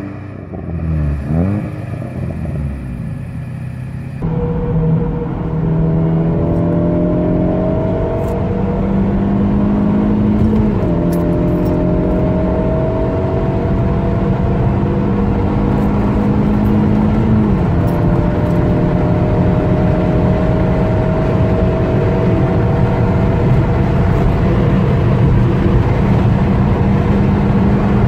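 Opel Corsa C GSi's 1.8-litre 16-valve four-cylinder engine: a couple of quick revs, then a long, steady pull with the pitch climbing slowly, dropping back at gear changes about eleven and seventeen seconds in.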